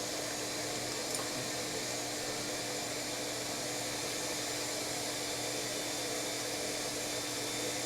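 Steady, even hiss with a faint low hum, unchanging throughout: background noise with no tool starting or stopping.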